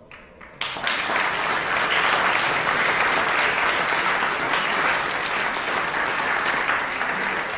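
Audience applauding, starting abruptly about half a second in and beginning to die away near the end.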